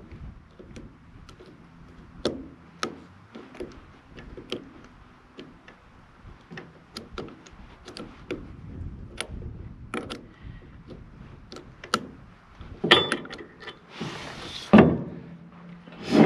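Scattered clicks, taps and clanks of small metal tools and parts being handled, with a few louder knocks near the end and a brief hiss.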